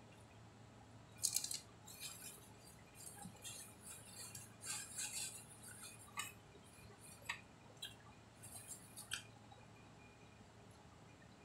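Faint, scattered clicks and crinkly rustles of someone eating at a table, handling food and tableware, in uneven clusters that stop about two seconds before the end.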